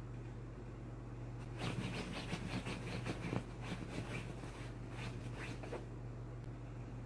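Dachshund burrowing its head into a cushion and rolling over in soft bedding: a run of scratchy fabric rustles for about four seconds, starting a second and a half in.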